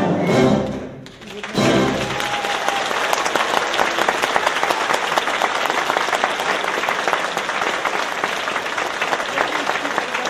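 A theatre orchestra finishes a ballet variation with a last loud chord, and about two seconds in a large audience breaks into steady applause that continues.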